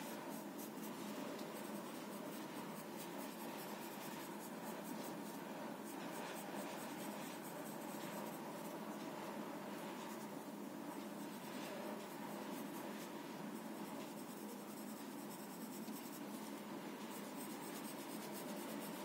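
Soft graphite sketch pencil scratching across drawing paper in a continuous run of short shading strokes.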